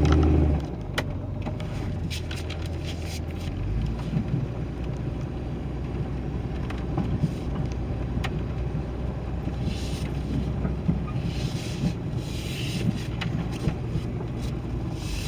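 2001 Jeep Cherokee engine running as the Jeep drives slowly over rough ground, a steady low hum with scattered clicks and knocks. The owner suspects rod knock or a loose flex plate.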